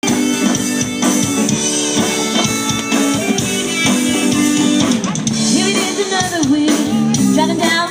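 Live country band playing a song's intro: a drum kit keeping a steady beat of about two hits a second under held guitar chords. A sliding melody line joins about five seconds in.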